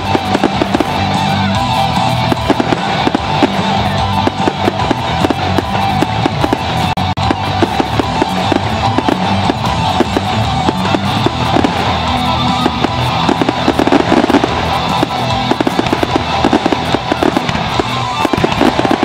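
Fireworks display: dense, rapid crackling and popping of bursting shells, over music played with the show.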